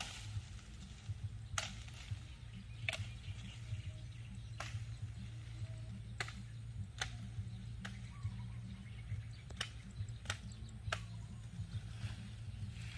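Sharp snaps and knocks from cut tree branches being broken and struck while clearing brush, about nine at irregular intervals, over a steady low rumble.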